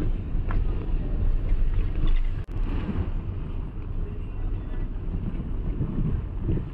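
Low, steady rumble of a car driving slowly, with wind buffeting the microphone, broken by a brief dip about two and a half seconds in.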